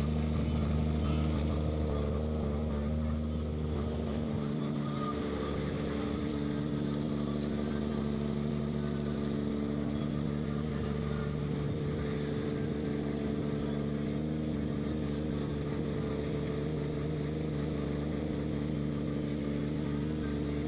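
A ship's engine running with a steady, even hum; its deepest note drops away about four seconds in.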